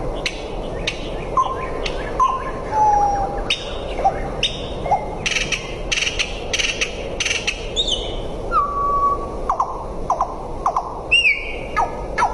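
Birds calling: a string of short chirps and whistled notes, some sliding down in pitch, with a quick run of sharp chirps in the middle and a falling call near the end, over a steady background hiss.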